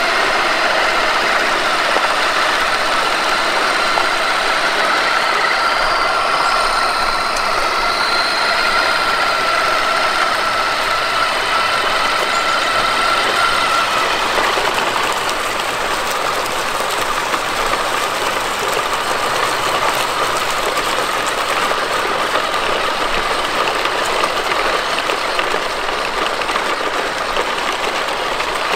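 Steady high whine of an electric RC crawler's motor and gearbox as the Traxxas TRX-4 Defender pulls two other RC trucks under load, over a rough noise of tyres on pavement, leaves and gravel. Partway through, the whine gets a little fainter and lower.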